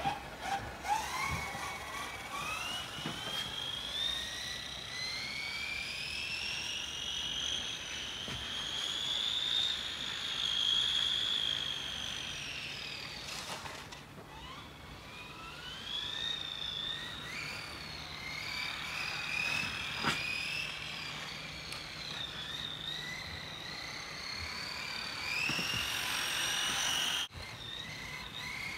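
Whine of a Tamiya F104 1/10-scale radio-controlled Formula 1 car's electric motor and gears, the pitch climbing and falling over and over as the car speeds up and slows for the corners, with a few short clicks along the way.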